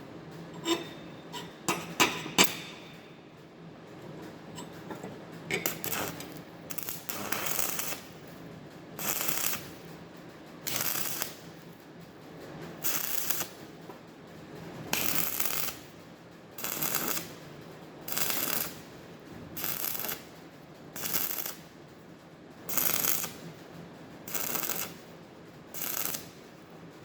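Stick welding arc laying a row of tack welds: a few sharp clicks near the start, then about a dozen short bursts of arc crackle, each a second or so long, coming every one and a half to two seconds.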